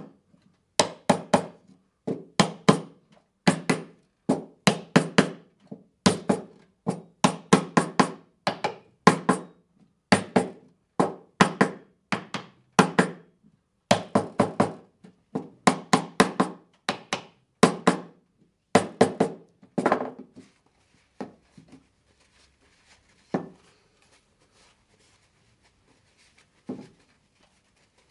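Small hammer tapping the corner joints of a wooden picture frame to seat them during assembly, in quick runs of several blows with short pauses. The tapping stops about two-thirds of the way through, leaving only a couple of faint knocks.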